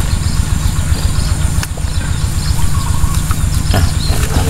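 A small engine running steadily with a low, rhythmic chug. A few faint short calls come through near the end.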